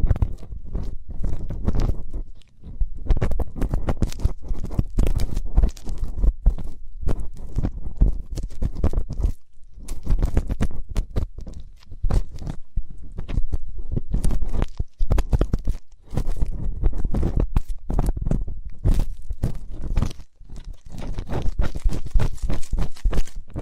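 Close-up ear-cleaning sounds: an ear pick scratching and rubbing inside a microphone's ear, crackling with a deep rumble, in runs of strokes with short pauses between them.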